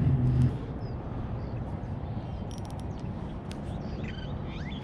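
Outdoor background rumble of traffic; a vehicle's low engine hum ends about half a second in. A few faint bird chirps come near the end.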